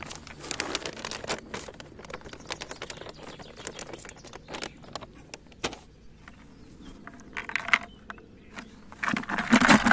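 Particle bait (seeds, corn and tiger nuts) being stirred and handled in a bucket: irregular small clicks, rattles and scrapes, with a louder scrape near the end.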